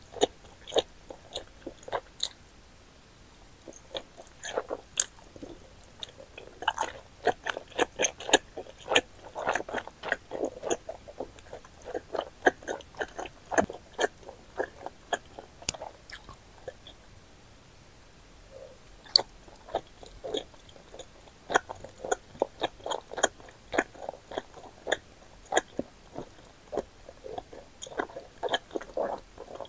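Close-up mouth sounds of someone chewing wide, chewy Chinese glass noodles in spicy buldak sauce: many quick clicks and smacks in bursts, with a brief pause a little past the middle.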